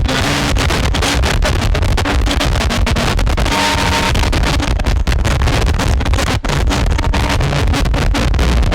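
Harsh noise music from signal run through fuzz and distortion pedals, including Death By Audio units and a BOSS Metal Zone: a loud, dense wall of distorted noise that stutters with rapid dropouts. A brief high steady tone sounds about three and a half seconds in.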